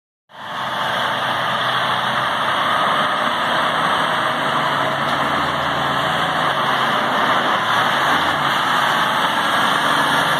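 Caterpillar 773F off-highway haul truck's C27 diesel engine running steadily as the truck drives past on a gravel haul road, fading in just after the start.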